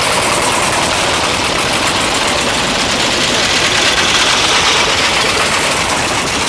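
Veteran cars driving slowly past one after another, their small early engines running. The loudest pass is about four seconds in.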